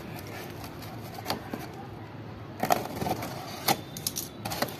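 A cardboard box being handled and pulled open, its flaps rustling, with a few short, sharp knocks and clicks spread through.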